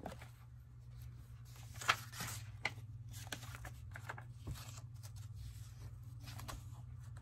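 Paper pages and card flaps of a handmade junk journal being handled and turned, with scattered rustles and light taps; the sharpest comes about two seconds in. A steady low hum runs underneath.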